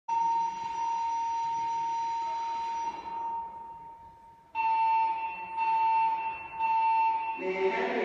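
Siemens MXL-V fire alarm voice-evacuation speakers sound a steady alert tone for about three seconds, which then fades out. Three pulses of the same tone follow in the temporal evacuation pattern. Near the end a lower, different sound comes in: the start of the recorded evacuation message.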